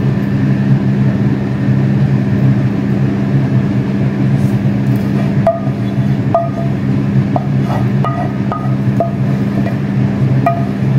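A steady low hum, with light background music of short tapped notes coming in about five and a half seconds in.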